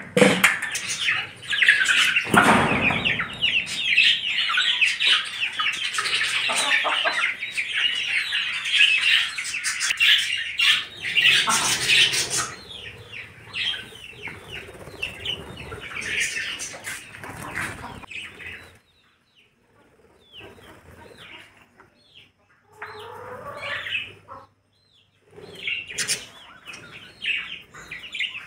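A flock of budgerigars chirping and chattering, dense and continuous for about the first twelve seconds, then thinning to scattered chirps with short pauses. A few lower clucks from chickens come in the first few seconds.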